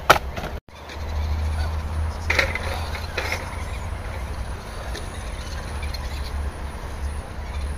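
Radio-controlled rock crawler creeping over wooden blocks on a timber beam: its electric motor and gears working, with a few knocks of tyres on wood, over a steady low rumble. The sound drops out briefly under a second in.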